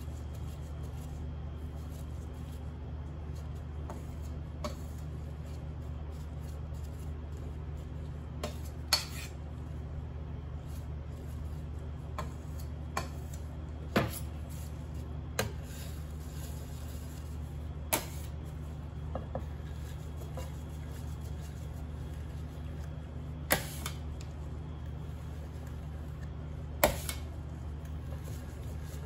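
Cake-decorating tools such as spatulas and scrapers being handled and set down, giving about half a dozen sharp clicks and knocks spread out over a steady low hum.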